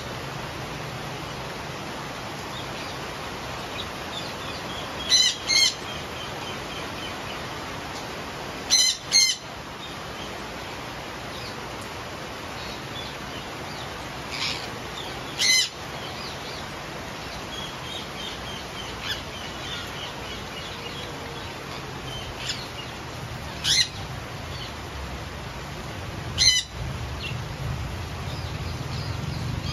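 Indian ringneck parakeets giving about seven short, loud screeches, some in quick pairs, with softer chatter between them. Steady rain hisses underneath.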